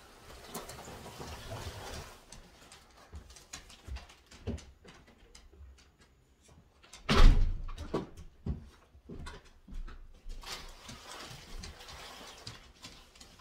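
Front door shutting with a loud thud about seven seconds in, amid scraping and knocks from a heavy cardboard box being shoved and dragged across the floor.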